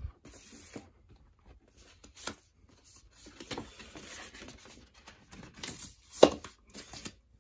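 Record sleeve rustling and scraping as a vinyl LP is handled and slid back into it, with scattered light clicks and one sharper knock about six seconds in.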